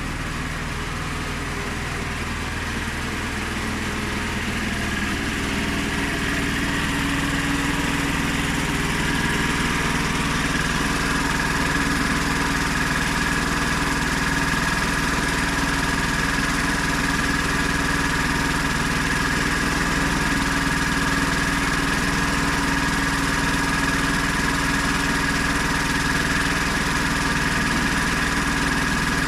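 Honda GX390 single-cylinder petrol engine driving a homemade portable sawmill, running steadily. It gets louder over the first several seconds, and a steady whine comes in and holds.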